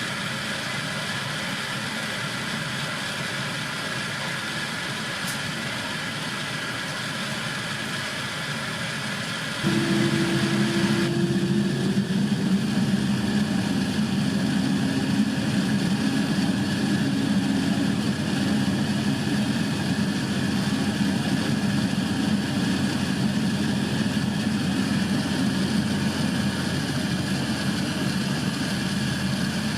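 Airbus A350-900 jet aircraft noise, the engines running steadily. About ten seconds in it steps up suddenly, becoming louder with a deeper hum and a brief slightly rising tone.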